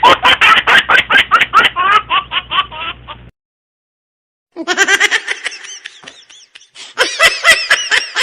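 Laughter sound effects: a rapid run of rhythmic 'ha-ha' laughs that trails off about three seconds in, then a second of dead silence, then a second laughing clip of arching, giggly laughs that grows louder near the end.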